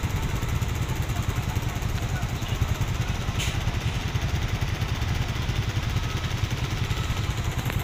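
Motorcycle engine idling close by, a steady fast low putter. There is a short click about halfway through.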